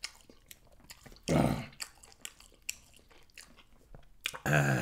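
A man chewing and biting chicken wings close to the microphone: a run of small wet mouth clicks and smacks. His voice breaks in briefly about a second and a half in and again near the end.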